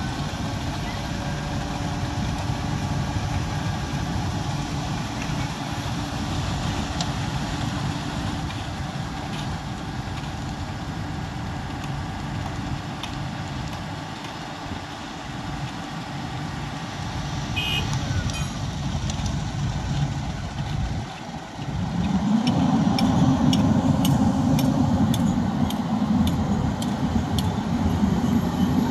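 Diesel engine of heavy construction machinery running steadily. About three-quarters of the way in it dips briefly, then comes back louder, with a scatter of light clicks over it.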